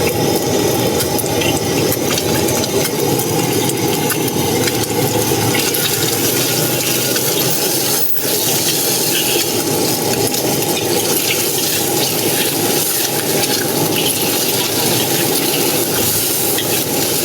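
Food frying in a hot pan, sizzling steadily as it is stirred, with a short dip about eight seconds in.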